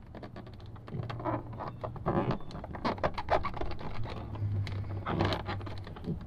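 Hands working a Chevy Silverado's plastic interior trim panel and its push-in retaining clip: irregular scraping, rubbing and clicking of plastic as the clip is worked loose.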